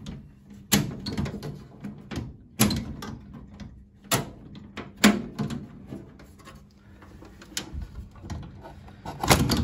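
Sheet-metal cover panel of a floodlight's gear compartment being handled and taken off: a series of sharp metallic knocks and clanks, about six of them spread over several seconds, with lighter scraping between.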